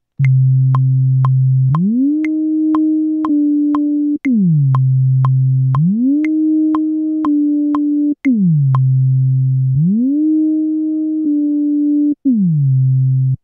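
Native Instruments Massive synth bass, played by a programmed Maschine pattern with glide on: a low note slides smoothly up to a higher note, holds, then slides back down, repeating about every four seconds. Short, steady clicks tick about twice a second throughout.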